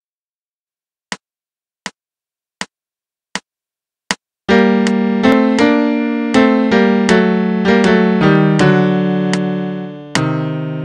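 Score-playback of a choral arrangement in music notation software, voiced with a piano sound: five evenly spaced count-in clicks, then about four and a half seconds in the piano chords begin, each struck and fading.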